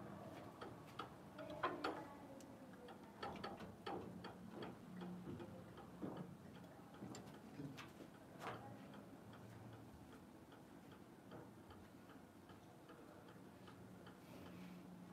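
Near silence: room tone with faint, irregularly spaced clicks and taps, a cluster of slightly louder ones about two seconds in, thinning out after about nine seconds.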